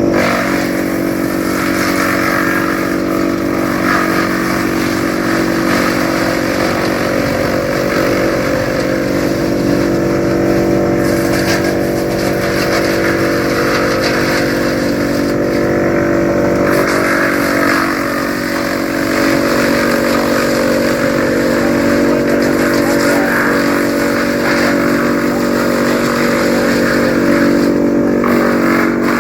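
TOMCAT M4250AFP PTO woodchipper running steadily off a tractor, its engine and rotor giving a constant hum, with repeated stretches of rough crunching as citrus prunings are fed through and chipped.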